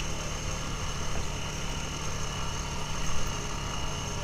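Honda ATV engine running steadily while riding, a continuous low rumble.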